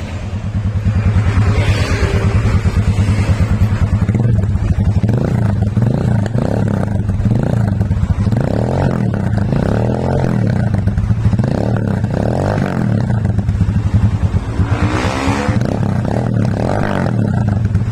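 Rusi Classic 250 motorcycle engine running through a newly fitted M4 universal aftermarket exhaust muffler, a steady, rapid, low exhaust beat.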